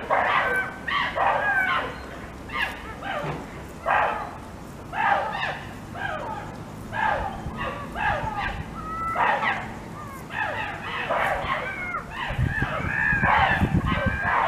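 Birds calling over and over in short arching cries that come in clusters, with a low rumble near the end.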